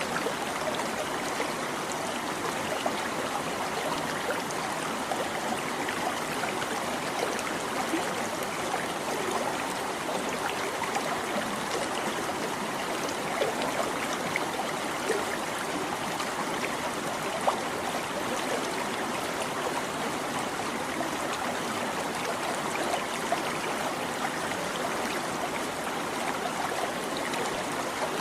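Small stream babbling and trickling over stones, a steady rush of water with many small splashes and gurgles.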